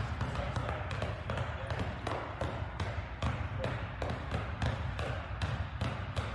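Two basketballs dribbled at once on a hardwood gym floor, a quick run of sharp bounces about three a second.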